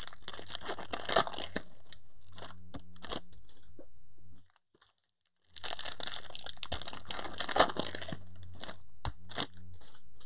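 A 2020 Bowman Chrome foil card pack wrapper being crinkled and torn open by hand, in two busy stretches of crackling and tearing with a steady low hum underneath. The sound cuts to silence for about a second midway.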